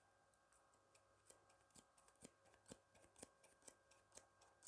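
Hair-cutting scissors snipping close to the microphone: faint, crisp snips, sparse at first, then a steady run of about four a second.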